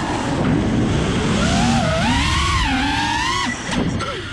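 FPV racing quadcopter's electric motors whining, the pitch following the throttle: it falls sharply at the start, climbs again about one and a half seconds in, cuts off about three and a half seconds in, then rises and falls quickly in short blips near the end. A steady rush of wind on the onboard microphone runs underneath.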